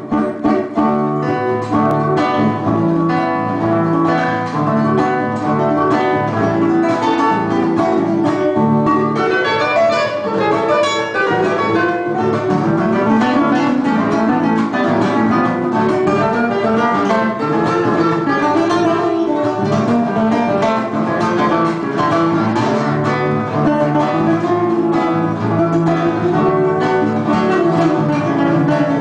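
Trio of guitars playing an instrumental gato cuyano, an Argentine folk dance tune, with plucked melody lines over strummed accompaniment.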